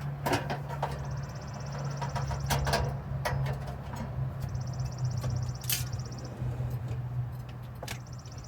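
Knocks and clicks of things being handled during a breakfast setup, over a steady low hum, with a high hiss that comes and goes twice.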